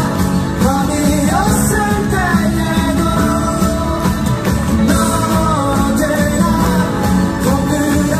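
Live rock song: a male singer's vocals over electric guitar and band accompaniment, steady and loud.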